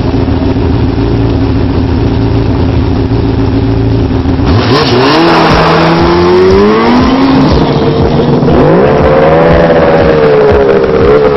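Yamaha snowmobile engine running low and steady, then revving hard about four and a half seconds in as the sled launches and accelerates away. Its pitch climbs, dips briefly and climbs again.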